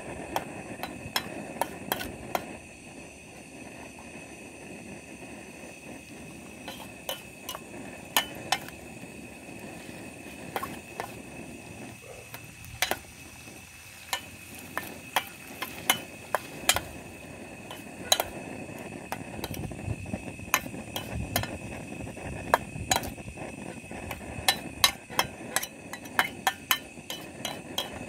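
A metal spoon stirring winged beans and clams in a small stainless steel pan, clinking and tapping against the pan in irregular sharp clicks, several a second, over a steady background hiss.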